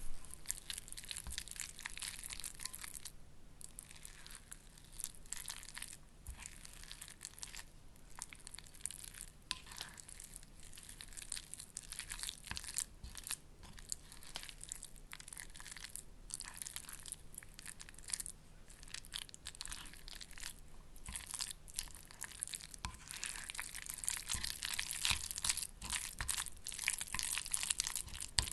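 Wet, sticky tuna and pasta mixture being stirred, with irregular squelching, crunching strokes. There is a short pause about three seconds in, and the stirring is busiest near the end.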